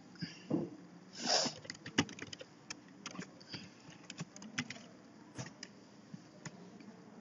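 Computer keyboard keys being typed in short irregular runs, mixed with mouse clicks. A short breathy noise about a second in is the loudest moment.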